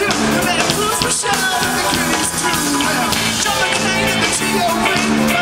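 A live rock band playing through a PA, heard from the audience: electric guitar and drums, with a male vocal sung into a handheld microphone.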